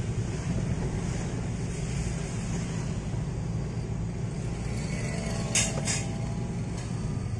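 Road noise inside a moving car's cabin: a steady low rumble of engine and tyres. About five and a half seconds in, two short sharp sounds come a third of a second apart.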